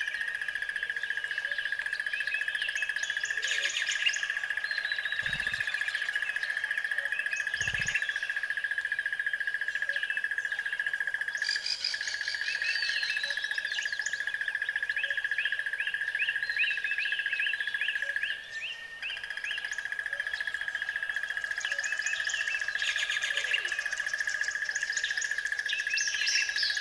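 Several birds chirping and singing in repeated short phrases, over a steady high-pitched tone that drops out for a moment about two-thirds of the way through.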